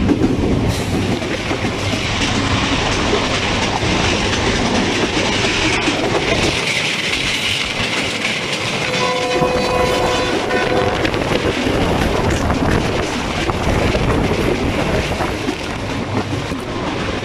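Passenger train running over a river bridge, heard from aboard: a loud, steady rattle and rumble of wheels on rails. A horn sounds for about two seconds near the middle.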